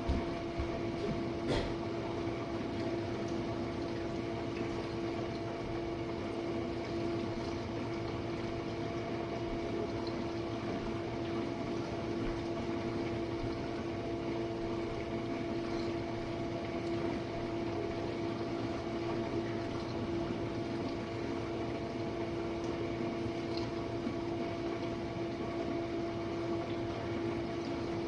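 Jenn-Air dishwasher running its wash cycle: a steady pump hum with water washing around inside the tub. One small click about a second and a half in.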